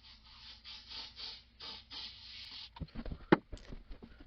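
Repeated scrubbing strokes on the toilet's flush valve seat as it is cleaned, a few strokes a second. Then, about three seconds in, a handful of sharp clicks and knocks, one much louder than the rest.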